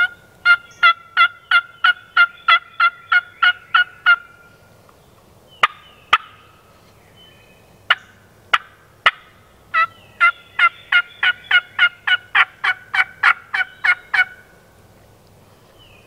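Wild turkey yelping: a long, loud series of yelps at about three a second, a few single sharp notes, then a second long series of yelps.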